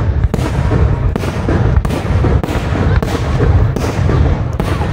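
Aerial firework shells bursting in quick succession, a sharp bang every second or less over a continuous rumble of booms.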